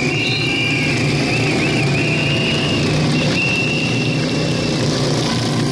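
Engines of the stayer pacing motorcycles running in a group around the velodrome, a steady, even mechanical drone.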